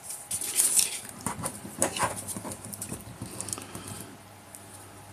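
Hard plastic action figure being handled: light clicks, taps and rustles as its limbs are worked and it is stood on a tabletop. The handling thins out about three seconds in.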